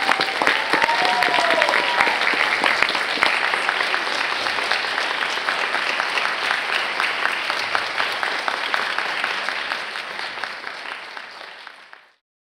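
Audience applauding in an auditorium: dense, steady clapping that dies away near the end.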